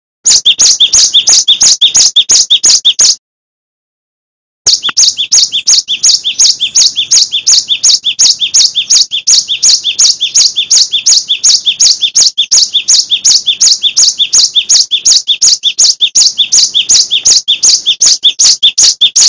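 Gelatik batu (cinereous tit) singing a fast, even run of repeated high chirps, about five a second. It breaks off for about a second and a half around three seconds in, then goes on unbroken.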